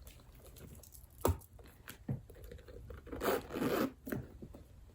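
Zipper of a small vanity case being drawn closed with a short rasp, after a sharp click about a second in.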